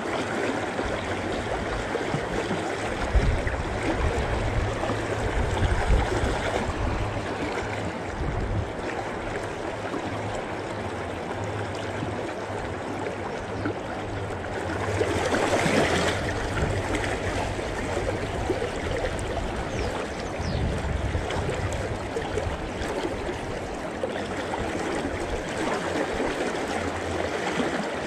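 River current rushing and gurgling, with a low rumble underneath; the water noise swells louder about halfway through.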